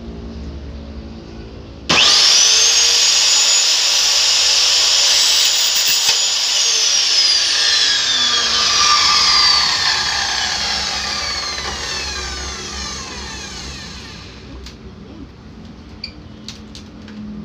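Electric miter saw switched on about two seconds in: the motor and blade spin up at once to a steady high whine with a harsh cutting noise, consistent with cutting aluminium window profile. About seven seconds in the trigger is released and the blade winds down for several seconds, its whine falling steadily in pitch until it fades.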